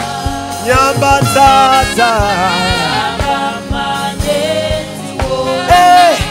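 Live gospel worship music: a male lead singer sings into a microphone with backing vocalists joining in, over a sustained instrumental backing and a steady drum beat.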